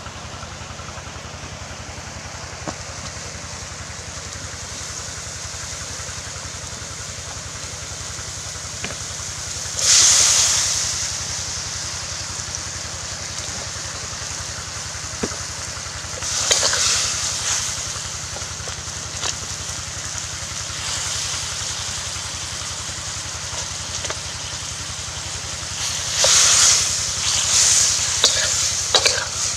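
Food frying in oil in a steel wok over a wood fire: a steady sizzling hiss, with louder bursts of sizzle about a third of the way in, again past halfway, and near the end as a metal spatula stirs the pieces.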